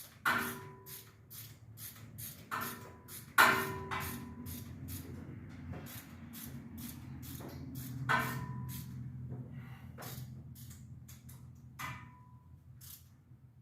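A series of irregular sharp metallic clinks and knocks, several ringing briefly, typical of hand tools working on an engine, over a low steady hum.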